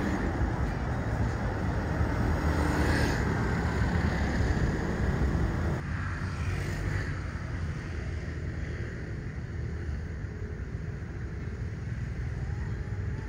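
Street traffic: cars and motorbikes running past as a steady, dense noise. About six seconds in, it cuts abruptly to a quieter, steady outdoor hush.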